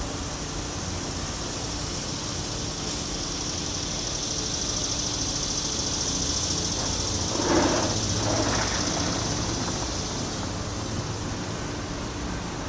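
A vehicle passing by: a steady rushing noise that swells to a peak about seven to eight seconds in and then fades.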